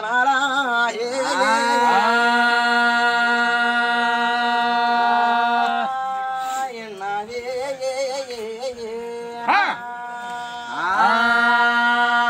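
A man singing unaccompanied in long drawn-out notes: three long held notes, each reached by an upward slide, with a wavering ornament at the start, in the style of a Telugu devotional folk song.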